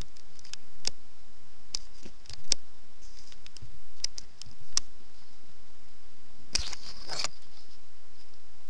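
Scattered small clicks and taps, with a short rustle about seven seconds in, as a book's pages are handled.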